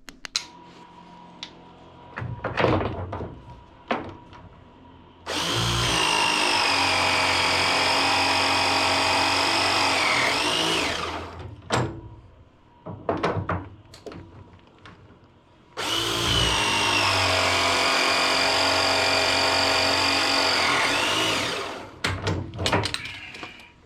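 Battery-powered pipe press tool crimping carbon-steel press fittings twice: each press is a steady motor whine of about five seconds that dips in pitch just before it cuts off. Clicks and knocks of handling the tool and jaws fall between the presses.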